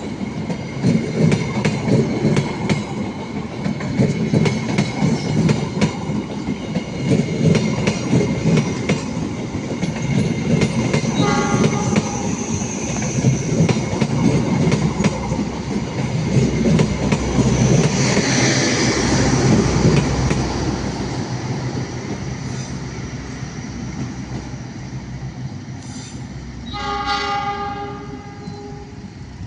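A train passing close by, its wheels clattering rapidly over the rail joints. There is a short horn note about eleven seconds in and a longer horn blast near the end, as the rumble fades away.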